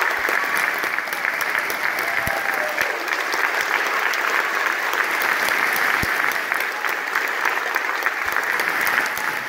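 Large audience applauding steadily in a standing ovation after a concert piece.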